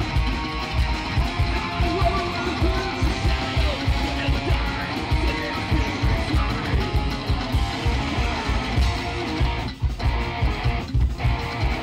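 Psychobilly band playing live: upright bass, electric guitars and drums with a fast, driving beat. There are two short breaks in the guitars near the end while the beat carries on.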